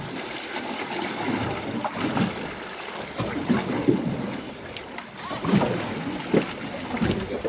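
Wind buffeting the microphone over the wash of the sea around a boat on open water.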